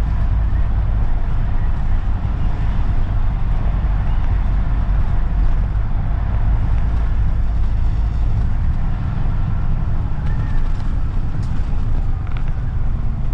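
A London bus running, heard from inside: a steady, loud low engine rumble with road and tyre noise.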